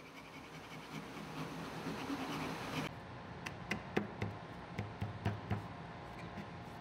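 A long knife blade shaving the end of a wooden tenon, a steady dry scraping for about the first three seconds. Then a run of light wooden clicks and knocks as the tenon is pushed and wiggled into its mortise.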